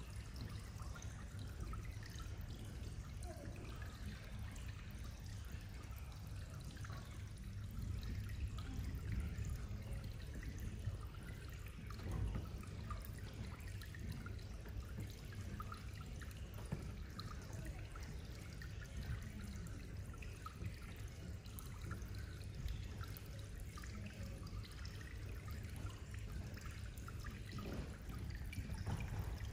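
Faint trickling and dripping of water over a low, steady rumble, from the shallow pool in which the LED counters sit.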